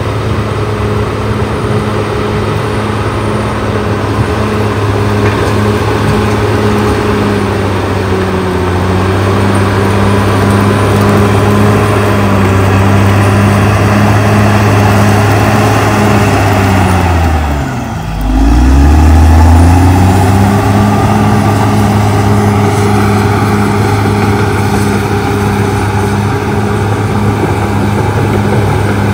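CAT D6R XL bulldozer's diesel engine working steadily under load as the dozer pushes brush. About two-thirds of the way through, the revs drop sharply, then climb back up to their loudest.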